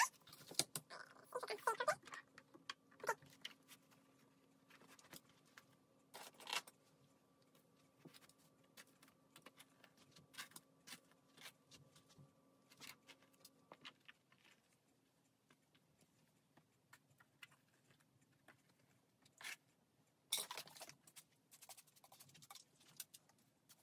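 Faint handling noises as a long curly wig is fitted onto a canvas block head: scattered soft rustles and small clicks, a few louder ones, over a faint steady hum that stops a little past halfway.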